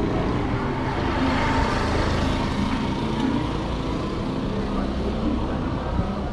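Street traffic: motor vehicle engines running close by, with a passing vehicle swelling in the middle.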